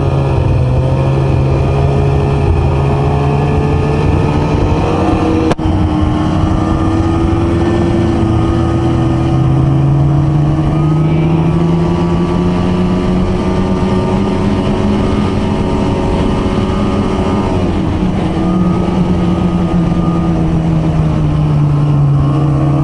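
Ski-Doo snowmobile's two-stroke engine running steadily while riding. Its note climbs slowly about halfway through and dips briefly near the end, with a short click about five seconds in.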